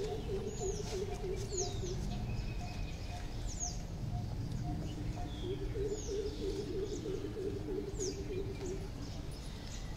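Birds calling outdoors: short, sharp high chirps that sweep downward in pitch, roughly one a second, over a steady low background rumble. Twice a low wavering sound runs for a few seconds beneath them.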